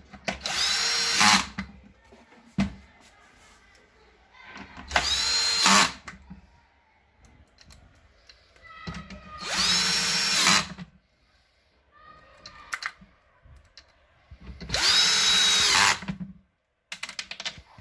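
Power drill-driver driving screws home in four short runs of about a second each. Each time the motor speeds up and then winds down as the screw tightens, fastening the washing machine door back together.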